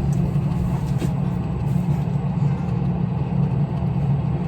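A steady low hum with no clear events.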